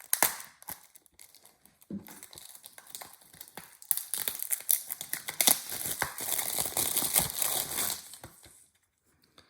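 Plastic shrink-wrap on a new Blu-ray case crinkling and tearing as it is peeled off: scattered crackles at first, then a few seconds of dense crinkling that stops shortly before the end.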